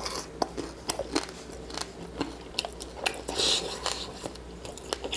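Close-up chewing of a crispy pan-fried chicken drumstick coated in a thin honey garlic sauce: a run of sharp crunches and wet mouth clicks, with a longer hiss about three seconds in.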